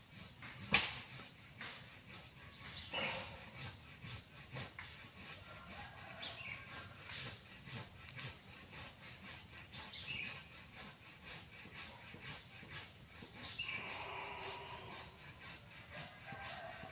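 Quiet outdoor ambience with scattered bird calls and insects, and one sharp click about a second in.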